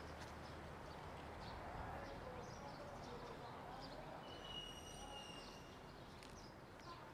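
Faint outdoor background with distant voices murmuring, and a single steady high whistle-like tone lasting about a second about four seconds in.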